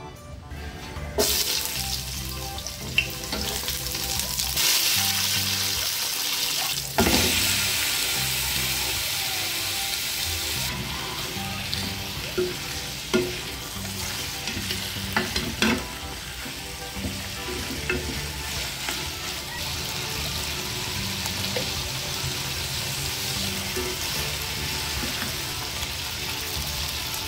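Chicken pieces sizzling as they fry in hot oil in a nonstick pan, with a spatula knocking and scraping against the pan as they are stirred. The sizzle starts about a second in and turns suddenly louder about seven seconds in.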